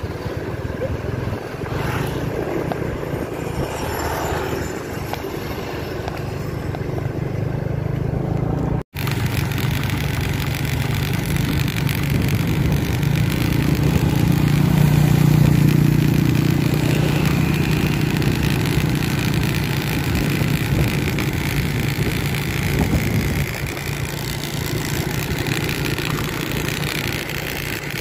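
Honda motor scooter's engine running while being ridden, its note swelling about halfway through and easing off again. The sound cuts out for an instant about nine seconds in.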